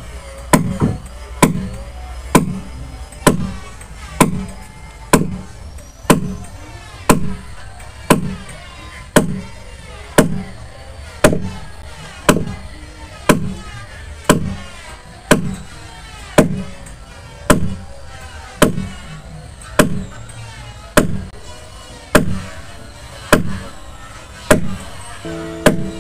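A hand hammer pounding a 10 mm iron rod down through a wooden boat frame toward the keel, in a steady rhythm of about one sharp blow a second. Background music plays underneath.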